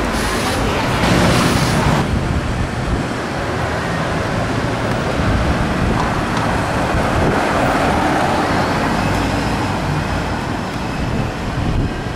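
Street traffic noise: cars, among them a Bentley Bentayga SUV, driving past at low speed, a little louder in the first couple of seconds.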